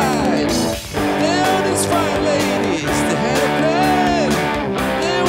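A small rock band playing: a semi-hollow electric guitar with bending notes over a Roland Juno keyboard and a steady beat, dropping out briefly about a second in.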